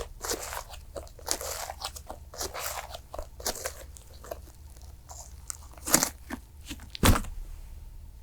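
Cream slime being squeezed and pressed by hand: a run of sticky crackles and small pops, with two louder pops about six and seven seconds in.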